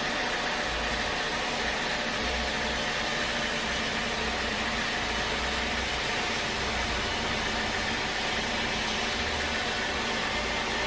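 Sawmill machinery running steadily, a continuous even mechanical noise with no breaks.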